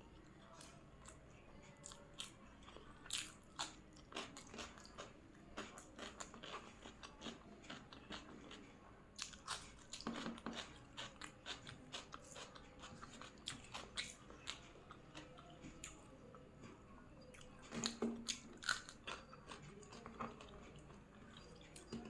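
A person eating biryani close to the microphone: wet chewing with many short crisp crunches and smacks, coming thicker in two spells, about ten seconds in and again near the end.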